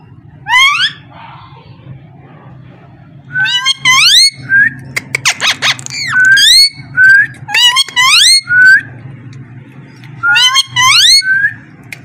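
Moustached parakeet calling: loud, rising squawks, repeated in bunches of two or three. A few sharp clicks come in the middle.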